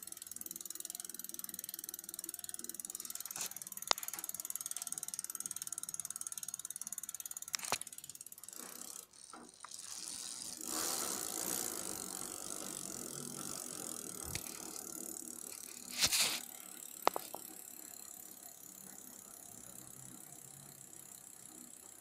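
Giant Tracker Sport rear hub on a Giant Talon 3 mountain bike freewheeling as the rear wheel coasts, its pawls ticking rapidly in a steady run. The ticking dies down around nine seconds in, comes back louder when the wheel is spun again, then slowly fades, with a few sharp knocks along the way.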